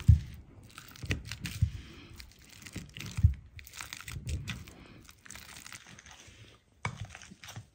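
Ripe bananas being mashed by hand: irregular squishing and crackling, with a few soft knocks, the strongest at the very start and another about three seconds in.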